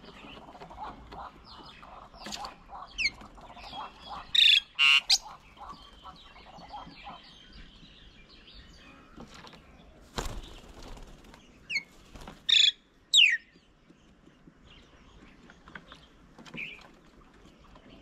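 Mynas calling at a feeding table, with a background of busy bird chatter. There are two loud clusters of short calls, some sliding quickly down in pitch, about four to five seconds in and again about twelve to thirteen seconds in. A brief flutter or thump of a bird landing comes about ten seconds in.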